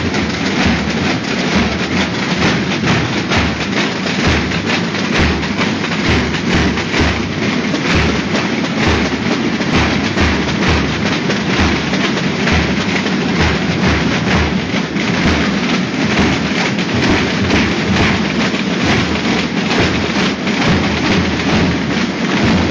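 A massed group of snare drums and large bass drums beating together in a loud, continuous rhythm. The snare rolls make a dense rattle, and the bass drums give repeated deep thumps.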